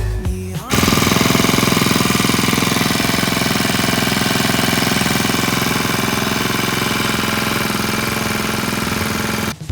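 Pazto BG435 four-stroke brush cutter engine running steadily at a constant speed, starting abruptly about a second in and cutting off just before the end. Background music fades out at the start and comes back at the very end.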